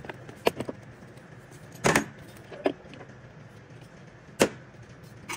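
Metal-on-metal clinks and knocks from TH350 transmission internals as the upper planetary gearset is worked loose and lifted out of the case. About six sharp knocks, the loudest about two seconds in and another about four and a half seconds in, over a steady low hum.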